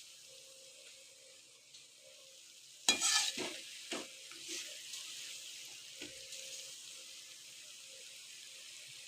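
Thin strips of wheat-flour dough (nimki) deep-frying in hot oil with a steady sizzle. A utensil clatters against the pan in a cluster of knocks about three seconds in, and knocks once more near six seconds.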